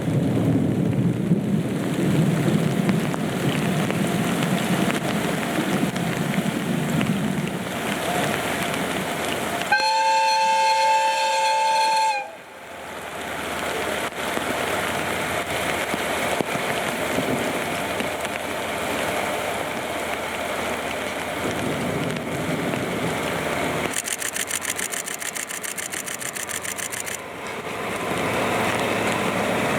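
A DE10 diesel locomotive's horn sounds once, about ten seconds in, holding two tones together for about two and a half seconds before cutting off abruptly. Heavy rain hisses throughout, with a low rumble during the first several seconds.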